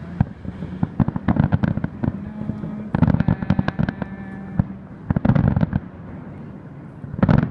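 Fireworks display: aerial shells going off in rapid clusters of sharp bangs and crackles, with short lulls between the clusters.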